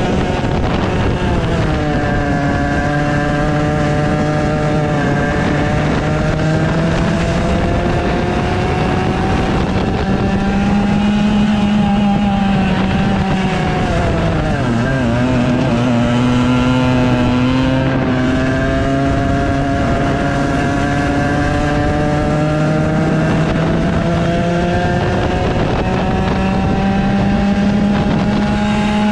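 100cc go-kart engine heard from onboard with wind rush. The pitch drops as the kart slows for a corner shortly after the start and again, more deeply, about halfway through, then climbs steadily as the kart accelerates along the straights.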